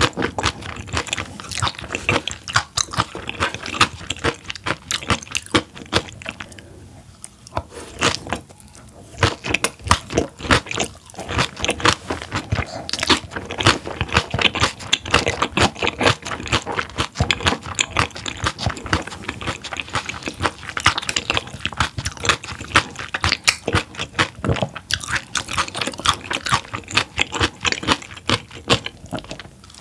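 Close-miked chewing and biting of raw large-eyed herring slices and spicy herring salad with vegetables, a dense run of quick, crisp clicks and crunches. The chewing goes quieter for a few seconds around seven seconds in, then picks up again.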